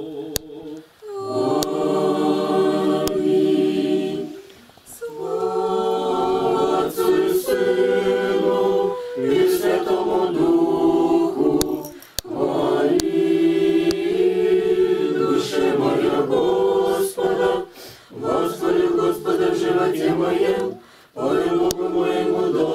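A small congregation of men's and women's voices singing Orthodox church chant a cappella. The hymn goes in held phrases a few seconds long, with short breaks between them.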